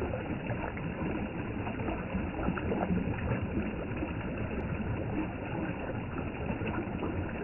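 Steady rushing of running water from a mountain stream, with small splashes scattered through it.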